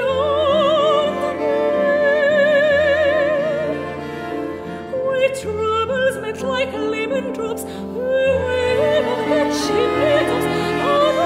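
Background music: a voice singing in operatic style, holding notes with a wide vibrato, over sustained instrumental accompaniment.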